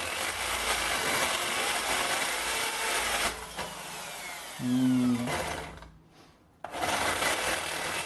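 Electric drill running a stepped drill bit into thin galvanized steel purlin; its gearbox is noisy, which its owner puts down to the gearbox dying. The drilling stops about three seconds in and the motor winds down with a falling whine. After a short break the drill runs again near the end.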